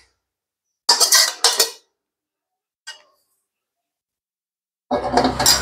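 A spoon and bowl clinking in a few short clattering bursts, one about a second in and another near the end, with a single faint tick between them.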